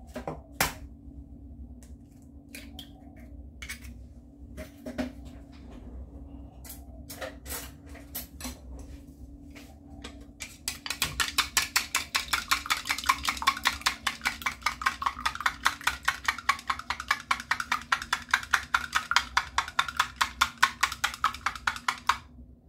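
Two eggs being beaten with a wooden stick in a plastic measuring jug. A few scattered light knocks and clicks come first, then about eleven seconds in a rapid, even clicking of the stick against the jug starts and runs until just before the end.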